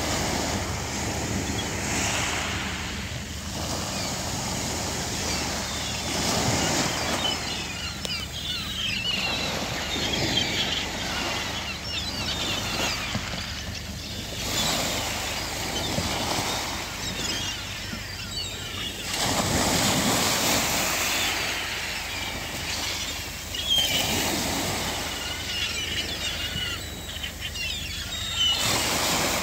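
Small waves breaking and washing in every few seconds, with gulls calling over the water, their cries busier after the first several seconds.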